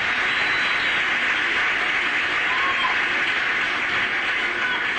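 Concert audience applauding, a steady dense clapping played back from a live concert DVD.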